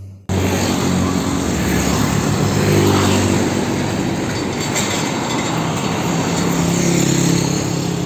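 Diesel engine of a loaded car-carrier truck running as it moves along a road, with steady road and traffic noise; the sound cuts in suddenly just after the start.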